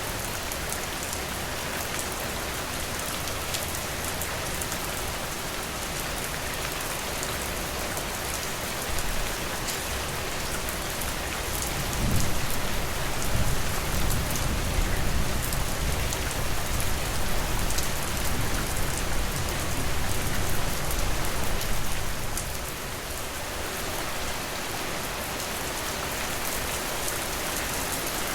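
Steady rain falling, with fine pattering drops, and a long low rumble of thunder rolling through for about ten seconds midway.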